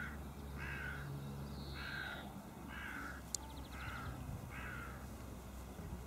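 A series of short, harsh animal calls, about one a second, six in a row.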